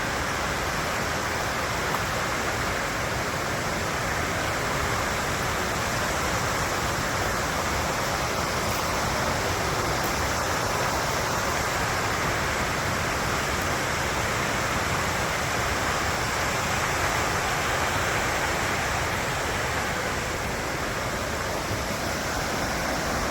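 Waterfall rushing steadily: the Towaliga River cascading down over granite rock.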